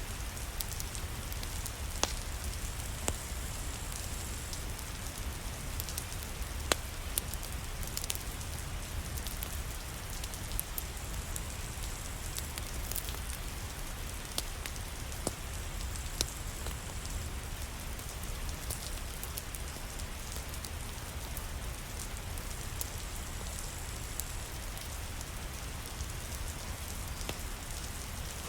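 Steady rain pattering, with a low rumble underneath and scattered sharp clicks and pops throughout.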